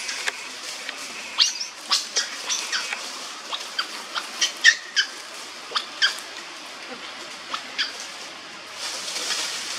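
Macaques giving many short, high-pitched squeaks and chirps, scattered irregularly, some dipping slightly in pitch.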